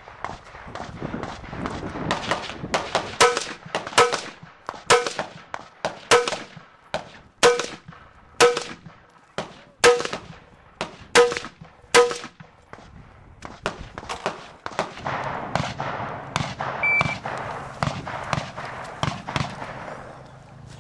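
A string of rifle shots from an AR-15-style carbine, fired in quick succession. The loudest run of about nine shots comes in the middle, each with a brief metallic ring after it. A shot timer gives a short electronic beep later on, and more shots follow.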